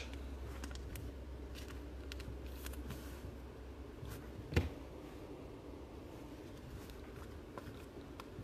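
Trading cards being handled: faint slides and small clicks of card stock, with one sharper knock about halfway through, over a steady low room hum.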